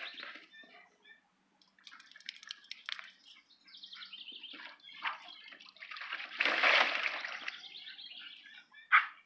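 Water splashing in a shallow plastic kiddie pool as a Doberman flops into it, loudest about six and a half seconds in, amid the smaller scuffles and splashes of two dogs playing around the pool. A short, sharp sound comes near the end.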